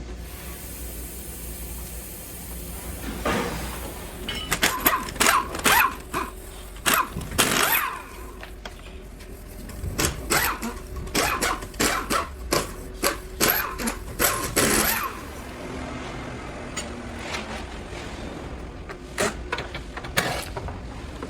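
Car disassembly work: a run of sharp knocks, clicks and short scraping sweeps as parts are worked loose, busiest in the middle and thinning out near the end, over a steady low hum.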